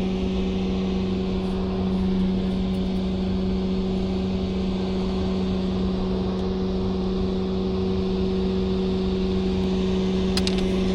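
Boat motor running at a steady, unchanging speed: an even hum with a low rumble beneath it.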